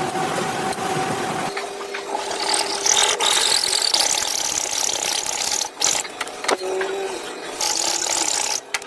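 An electric power tool's motor running under changing load, its steady whine shifting in pitch about a second and a half in and again later, over a strong high hiss, with a few brief dips in level.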